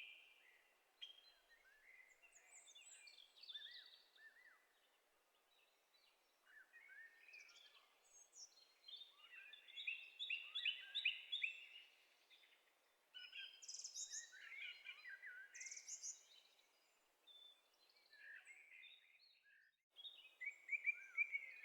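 Small birds chirping and singing, many short high calls and trills with brief quieter gaps between them.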